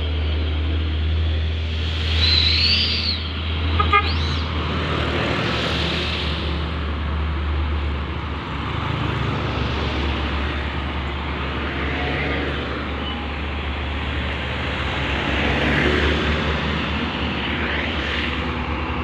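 Road traffic: heavy vehicles such as buses and trucks driving past, a steady running noise with a strong low hum.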